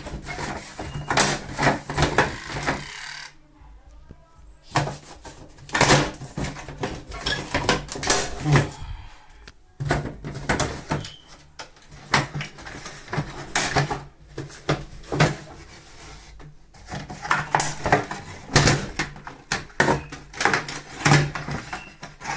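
Irregular clicks, knocks and clatter of hands handling a twin-tub washing machine's unbolted plastic panel to reach the timer inside, over a low steady hum.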